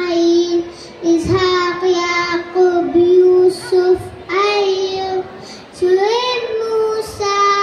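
A young girl singing into a microphone, a song listing the names of the prophets. She sings mostly on one held pitch, in phrases with short breaks between them.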